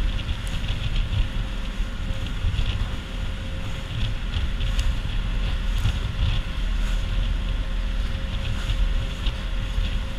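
Wind buffeting the microphone aboard a motorized outrigger boat (bangka) under way, over a steady engine hum.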